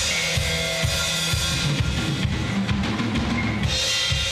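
Live rock band playing loud: electric guitars over a drum kit with a steady run of bass-drum beats. The high cymbal wash drops away for about two seconds in the middle and comes back near the end.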